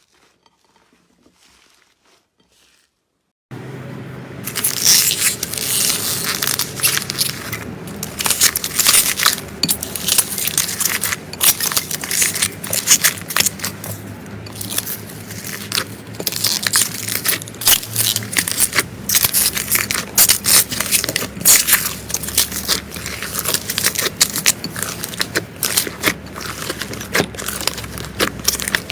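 Slime being pressed and squished by hand, making a dense run of crackling, clicking pops. It starts suddenly after a few quiet seconds.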